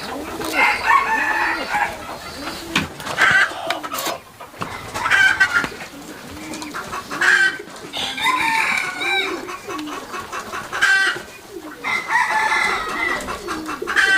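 Chickens clucking and calling over and over, with louder, higher calls breaking in every couple of seconds over a run of low, short clucks.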